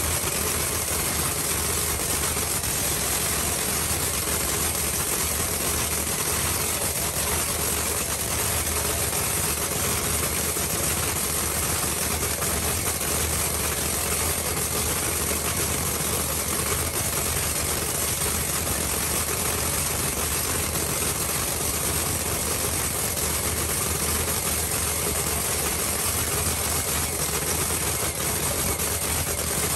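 Drag racing engine of a Pro 275 Camaro idling steadily.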